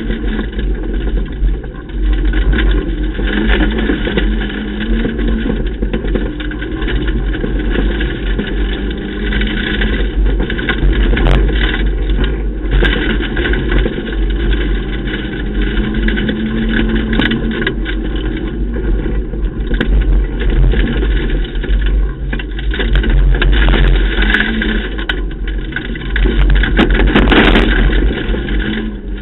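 Ford Ka rally car driven hard, its engine note rising and falling with the throttle and gears over heavy rumble and gravel road noise, heard from inside the stripped cabin. Scattered sharp clicks come through the rumble.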